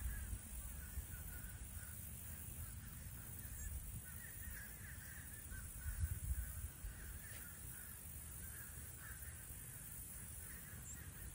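Baby American alligators chirping in the den: many faint, short, repeated calls, over a low rumble that swells for a moment about six seconds in.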